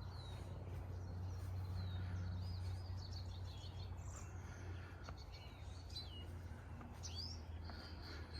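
Several wild birds chirping and calling in short, scattered notes, some rising and some falling, over a steady low hum.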